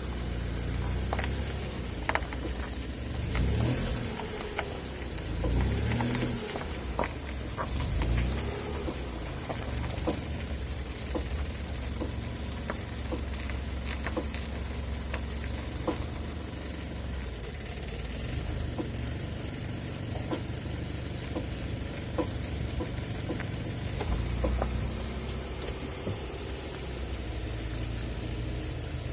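Mitsubishi Pajero iO engine running, its pitch rising and falling a few times, with short sharp knocks about once a second from underneath. The owner takes the knocking for a worn driveshaft universal joint.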